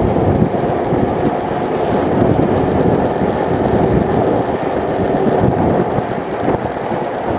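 Motorcycle riding at steady speed: the engine runs under a heavy, even rush of wind on the microphone.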